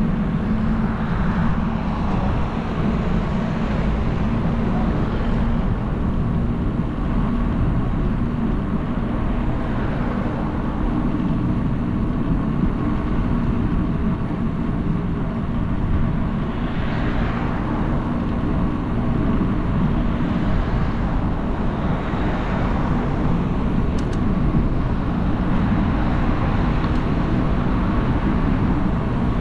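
Street traffic: a steady low rumble with several vehicles passing one after another, each swelling and fading over a few seconds.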